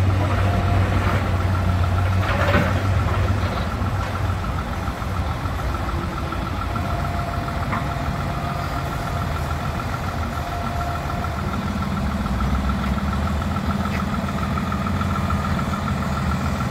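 Heavy diesel engines of a dump truck and a John Deere excavator running steadily, with a fast even ticking over the hum throughout. A brief crash about two and a half seconds in.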